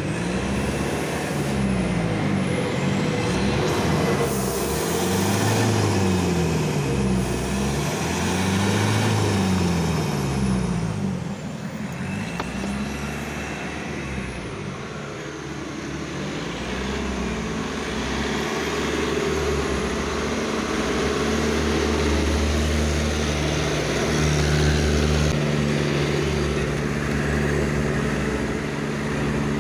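Toyota HiAce van's engine revved hard again and again, the pitch rising and falling every second or two. It then settles into a steadier, held speed, with one slower rise and fall around the middle.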